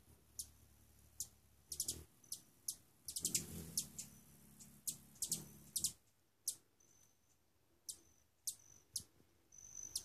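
Hummingbirds at a feeder giving sharp, very high chip notes, singly and in quick clusters, with a few short thin high tones. A low hum of hovering wings rises and falls twice in the middle.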